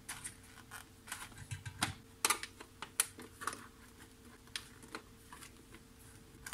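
Irregular small clicks and taps of a screwdriver working screws out of a metal shield plate, with light handling of the loose parts.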